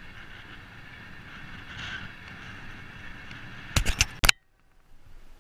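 Steady road and wind noise of riding a bicycle along a highway shoulder. Just before the four-second mark come several loud sharp clicks and knocks as a hand handles the camera, and the sound cuts out briefly.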